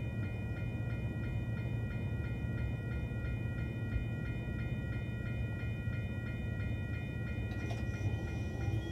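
WCH E-Bell electronic crossing bell ringing in quick, even strikes over the low rumble of a passing freight train.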